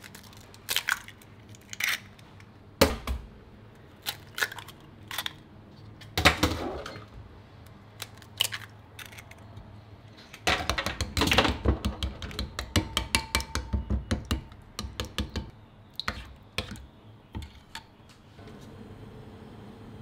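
Chicken eggs knocked against the rim of a ceramic bowl and cracked open: a few separate sharp taps and shell cracks. From about ten seconds in, a metal spoon beats the eggs into the curry sauce, clicking quickly against the bowl at about four strokes a second, and stops near the end, where a steady low hiss takes over.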